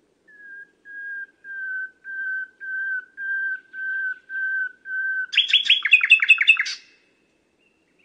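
Nightingale singing: a series of about nine drawn-out whistled notes on one pitch, growing louder note by note, then a fast run of sharply falling notes lasting about a second and a half that stops suddenly.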